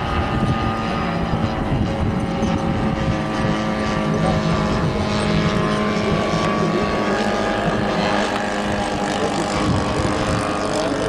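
Engine and propeller of a WWI-style biplane in flight, a steady drone that shifts slightly in pitch as the plane manoeuvres.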